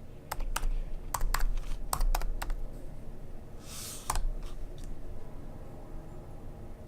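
Keys tapped on a MacBook Pro laptop keyboard: a quick, uneven run of sharp clicks, then a short rustle and a few more clicks about four seconds in.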